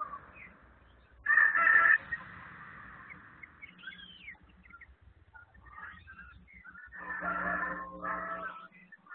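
Chickens calling: one short loud call about a second in and a longer two-part call near the end, with small bird chirps in between.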